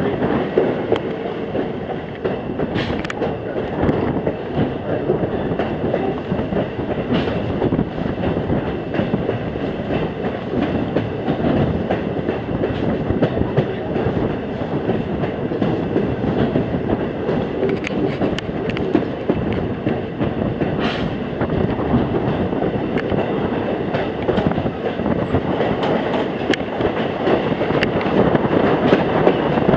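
Passenger train rolling along the track, heard from aboard a coach: a steady rumble of wheels on rail with clickety-clack over the rail joints and a few sharp clicks now and then.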